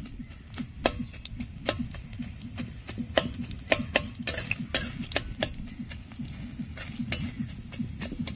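A metal cooking utensil knocking and scraping against a pan of boondi frying in oil: irregular sharp clicks, a few a second, over a steady low rumble.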